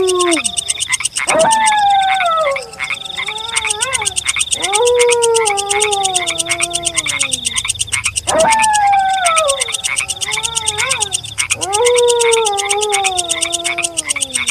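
Wolf howls: four long howls, each rising quickly and then sliding slowly down in pitch, one about every three and a half seconds, over a fast, steadily pulsing night chorus.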